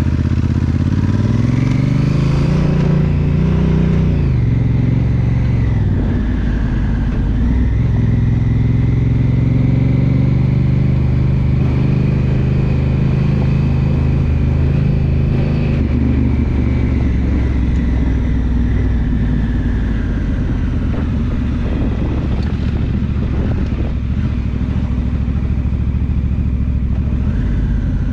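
Honda Africa Twin's 998 cc parallel-twin engine pulling away along a dirt track: the revs climb, drop back as the DCT automatic gearbox shifts up by itself, climb again, then hold a steady cruise, easing a little lower about two-thirds of the way through.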